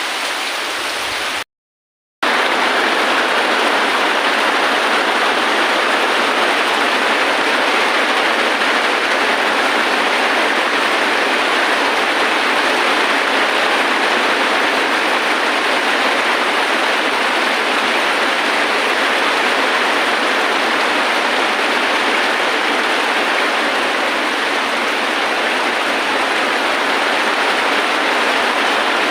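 Steady, heavy rainfall with no thunder, cut off by a half-second gap of silence about a second and a half in, then continuing slightly louder.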